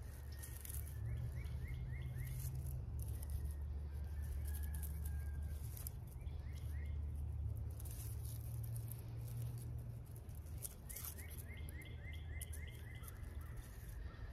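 A steady low rumble throughout, with a songbird giving quick runs of short chirps three times, and light rustling as hands work onion sets into loose soil.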